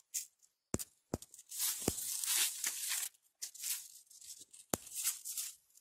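Chaya branches being cut and handled: about four sharp snips of hand shears, amid rustling and crackling of leaves and stems.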